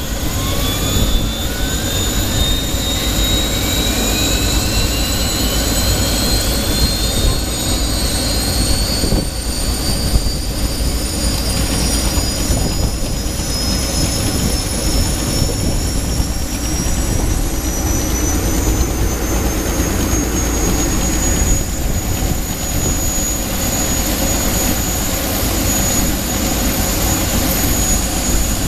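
Miss Geico offshore powerboat's turbine engines starting up: a high whine that climbs in pitch for about twenty seconds as the turbines spool up, then holds steady at idle over a low rumble.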